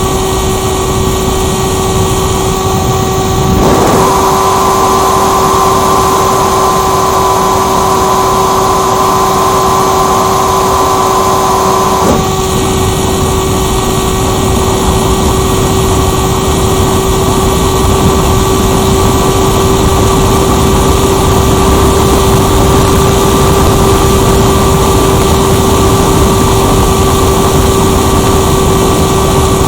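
Onboard sound of an RC motor glider in flight: loud wind rush over the airframe and camera, with a steady motor-and-propeller whine. About four seconds in, an extra higher tone joins the whine, then drops out again at about twelve seconds.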